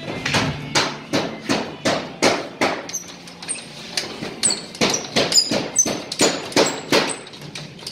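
A drywall hammer driving nails through plasterboard into timber studs, in quick steady blows about three a second. From about three seconds in, many blows give a short high metallic ring.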